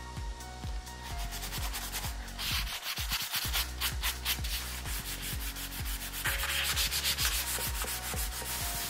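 Abrasive sanding sponge rubbed by hand over a painted wooden cabinet door in quick back-and-forth strokes, a rapid scratchy hiss. It is wearing away dried patina to give the paint a distressed, patinated look.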